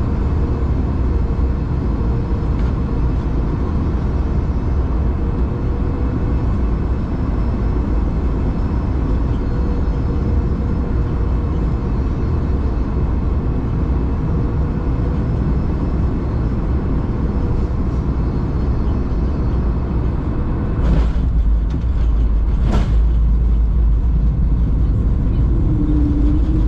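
Steady rumble and hum in the cabin of an Airbus A220 on final approach. Near the end a thump marks touchdown, a second thump follows about two seconds later, and the rumble grows louder as the airliner rolls down the runway.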